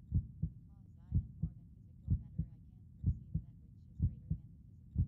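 Heartbeat track: a steady lub-dub, two low thumps close together, repeating about once a second.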